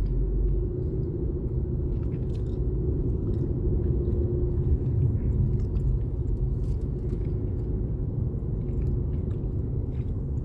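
Steady low rumble of a car moving along a road, heard from inside the cabin, with scattered faint irregular clicks and crunches over it.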